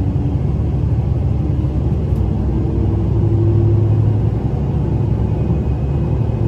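JR Shikoku 2700 series diesel railcar running, heard from on board: a steady low rumble of engine and wheels. The engine note rises slightly and grows louder a few seconds in, then eases back.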